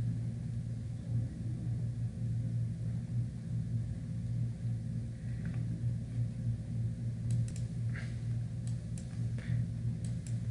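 Steady low background hum, with a few faint short clicks and light rustles in the second half.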